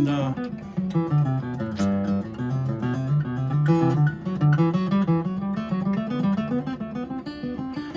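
Steel-string dreadnought acoustic guitar, a kit-built copy of a pre-war Martin D-28, played with a pick: a continuous run of quick picked notes over a moving bass line.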